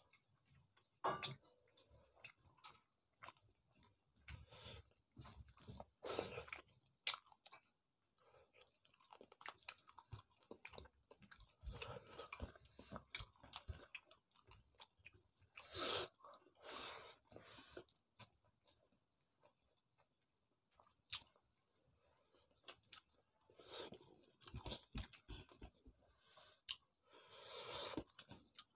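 Quiet, intermittent close-up eating sounds: chewing and mouth smacks, with short crunches and the wet squish of fingers mixing rice and fish curry on a steel plate.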